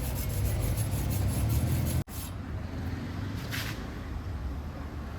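Stick welding arc crackling and sputtering over a low hum for about two seconds, then cut off suddenly. After that a low steady rumble remains, with one short hiss about three and a half seconds in.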